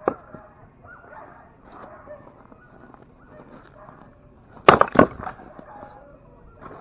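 An axe splitting firewood on a chopping block: a loud sharp crack of the blade into the log about two-thirds of the way in, followed a moment later by a second knock, with a lighter knock at the very start.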